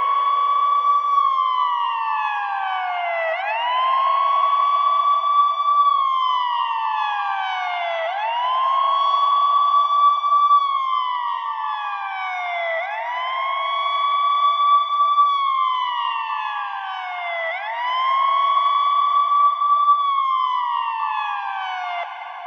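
Electronic siren in wail mode, about five cycles. Each cycle rises quickly to a high tone, holds it for about a second, then slides slowly down before rising again.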